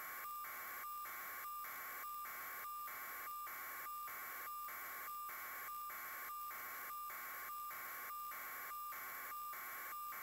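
Steady electronic static: a hiss with a thin steady tone running through it, broken by a brief, regular dropout about every 0.6 seconds.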